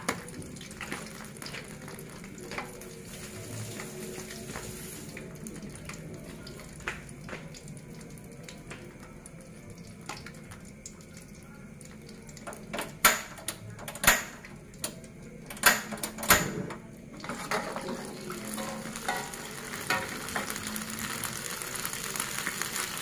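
Oil sizzling in a wok as chilies, tomatoes and shallots fry. Partway through there are a few sharp metal clanks of a mesh strainer against the wok as the vegetables go into the oil. After that the sizzling grows louder.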